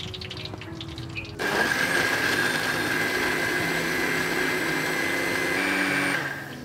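Panasonic countertop blender running, blending a yellow banana mixture in its jar, with a steady high whine. It starts abruptly about a second and a half in and winds down just before the end, with soft background music before it starts.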